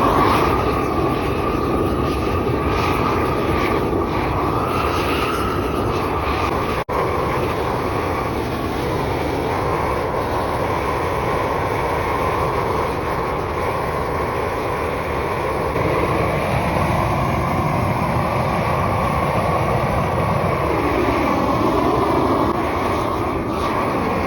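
Propane torch burning with a steady roar as it chars the end of a peeled spruce post. The sound cuts out for an instant about seven seconds in.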